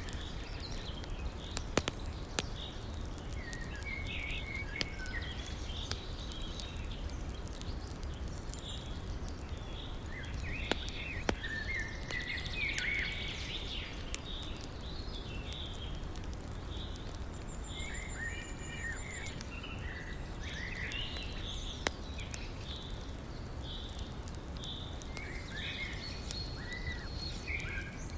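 Wood fire crackling, with a few sharp pops, over the steady rush of a river. Small birds chirp and sing throughout.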